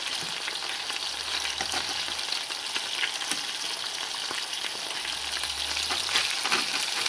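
Burbot pieces sizzling in hot oil in a thick-walled frying pan: a steady hiss with many small crackles. The burner is already switched off, and the heavy pan's stored heat keeps the oil frying.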